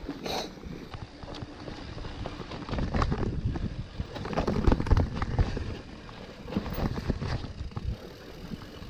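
Mountain bike ridden down a dirt trail, heard from the rider's own camera: tyres rumbling over the ground while the bike knocks and rattles over bumps, loudest about three to five seconds in.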